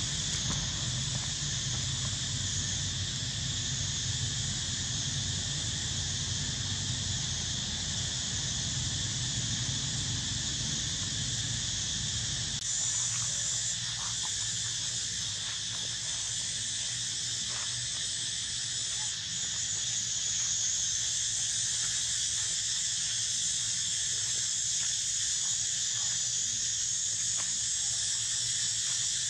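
Steady high-pitched drone of an insect chorus, unchanging in level throughout. A low rumble underneath stops abruptly about twelve seconds in, and a few faint ticks follow.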